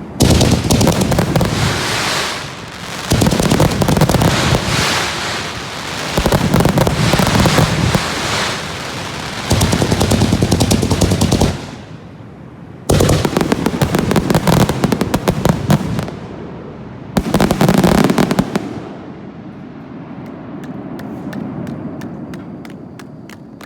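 Aerial fireworks finale: rapid volleys of bangs and crackling, in about six bursts of a couple of seconds each with short lulls between. Near the end they thin out to scattered single pops.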